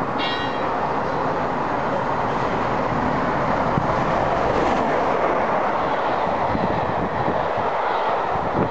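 Peppercorn Class A1 three-cylinder steam locomotive 60163 Tornado running through a station at speed with its train: a steady loud noise of engine and wheels on the rails, building slightly as the locomotive passes, then the coaches running by.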